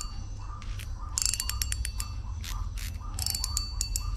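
Maguro Ruger spinning reel worked by hand: its mechanism ratchets in short runs of rapid clicks about every two seconds, over a soft, regular whir.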